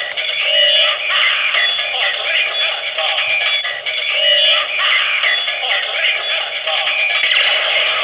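Gabutyra De Carnival toy's built-in speaker playing a sung electronic jingle with music, continuous and thin and tinny with no bass.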